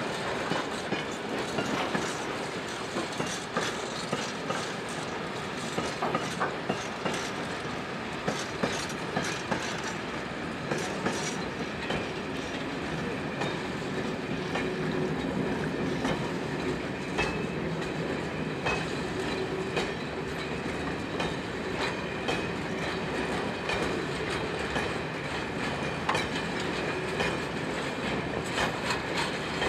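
Freight train wagons rolling steadily past, a continuous rumble of wheels on rail with repeated clicks of the wheelsets crossing rail joints. Faint squealing tones from the wheels come partway through.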